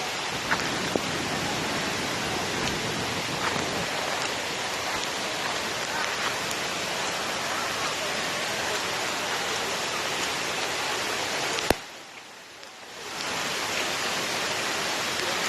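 Steady rushing of a waterfall's falling water. About twelve seconds in, a sharp click cuts the sound to a low level for about a second and a half before the rush returns.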